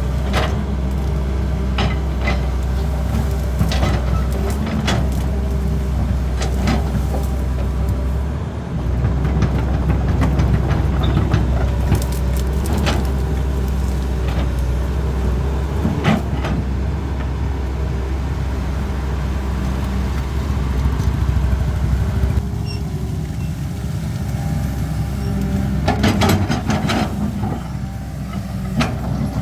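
CAT 320D hydraulic excavator's diesel engine running steadily under load while it works, with scattered knocks and clanks and a cluster of clatter near the end. The sound eases a little about two-thirds of the way through.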